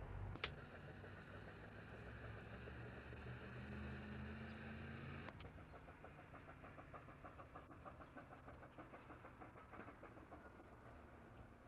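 Faint steam mill machinery on an old recording: a low rumble and hum that drops away about five seconds in, then a light, even ticking of about five beats a second.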